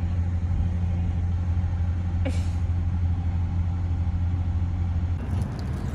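Steady low hum of a car's engine and road noise heard inside the cabin, with a brief high falling squeak about two seconds in. The hum gives way to a different background about five seconds in.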